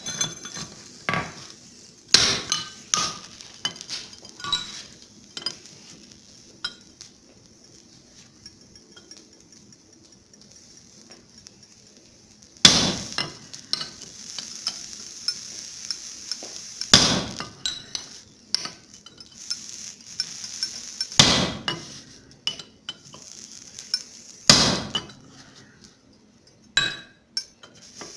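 Blacksmith's hammer striking steel on an anvil, with smaller metallic clinks of tools: a few scattered knocks near the start, then single loud blows about four seconds apart, over a steady hiss.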